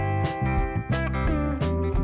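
Background music: guitar chords over a steady drum beat.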